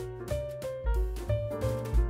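Outro music: a jazzy piano tune over bass notes that change every half second or so.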